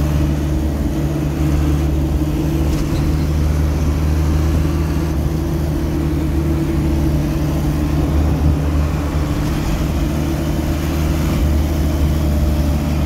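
Truck engine running steadily while driving, heard inside the cab with road noise; a low, even drone.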